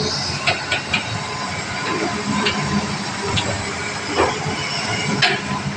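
Hitachi ZX200 hydraulic excavator running: a steady engine and hydraulic hiss, with several sharp metallic clanks spread through it.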